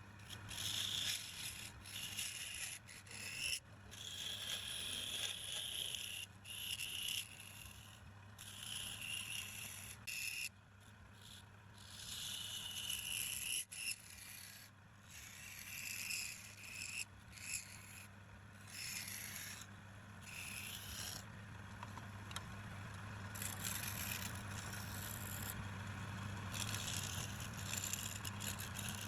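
A tool scraping against wood spinning on a woodturning lathe in repeated short passes, a high hissing scrape each time, over the steady low hum of the lathe.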